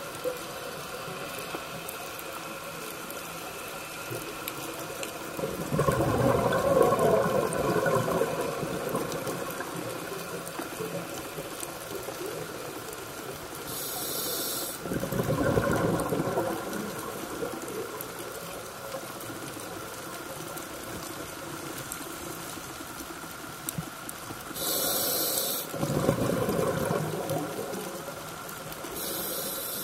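Scuba regulator breathing underwater: gushing bursts of exhaled bubbles come about every ten seconds, three times. The later two are each preceded by a short, high hiss of inhalation through the regulator.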